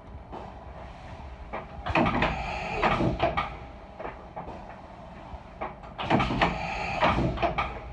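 Clausing Storm CNC vertical mill doing automatic tool changes: two bursts of clunks and a rushing hiss, about two and six seconds in, as the spindle releases and takes a tool. A steady machine hum runs underneath.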